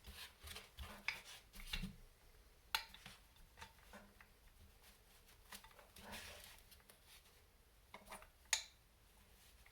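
Faint, scattered clicks and taps of small metal parts and tools being handled while assembling a model kit, with a sharp click about a third of the way in and the loudest one near the end.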